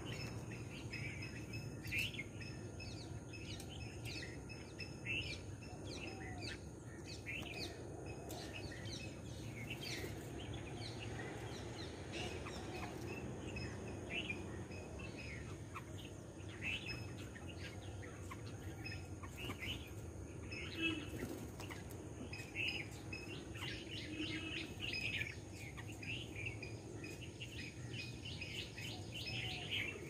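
Many short bird chirps and calls, repeated throughout, over steady outdoor background noise, with a few sharp ticks.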